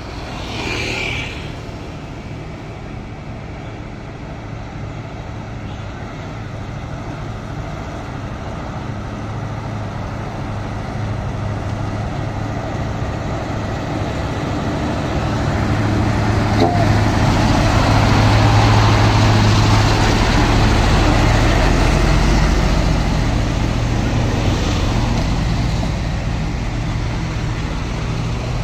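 Diesel engine of a heavily loaded Mitsubishi Fuso truck running as it approaches, growing steadily louder until it passes close by about two-thirds of the way through, then easing off as another truck comes up.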